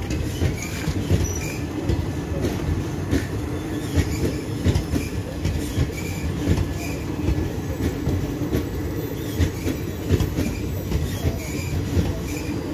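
Passenger coaches of an Indian Railways express train rolling past at speed: a steady rumble of wheels on rail, broken by sharp clacks as wheels cross rail joints, with brief high wheel squeaks.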